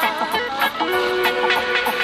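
Background music: held melody notes over light percussion ticks.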